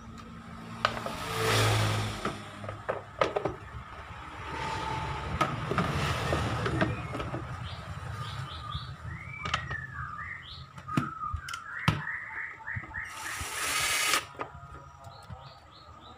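Scattered plastic knocks and clacks as a scooter's air-filter cover is handled and set onto the CVT case, with birds chirping in the background in the second half.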